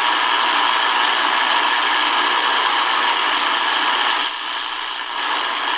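Shortwave static and hiss from a Tecsun DR-920C portable radio's small speaker as it is tuned between stations across the 49-metre band. The steady noise has no bass and shifts a little as the tuning knob moves.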